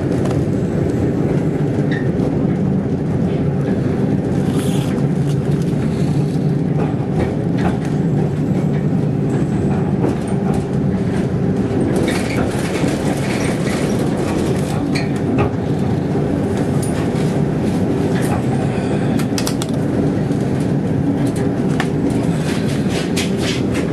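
Tram running along street track, heard from inside the car: a steady low rumble with many scattered clicks and knocks from the wheels on the rails.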